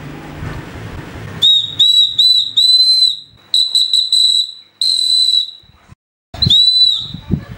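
Small homemade whistle folded from the metal casing of an old battery, blown in a series of about seven shrill blasts. Some are quick toots and some are held for about a second.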